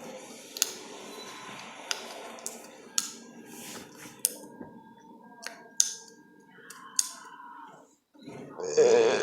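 Chewing gum snapped and clicked in the mouth: about eight sharp clicks, a second or so apart. Near the end a loud burp begins.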